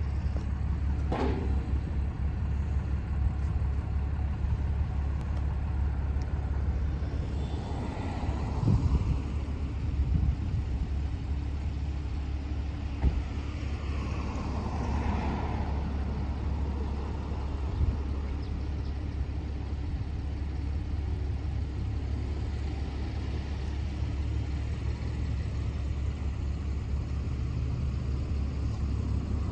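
Steady low rumble of a vehicle engine running at idle, with a few scattered knocks and clanks.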